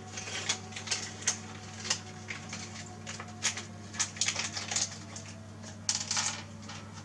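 Irregular small clicks and taps of plastic parts and cable being handled during 3D printer assembly, over a steady low hum.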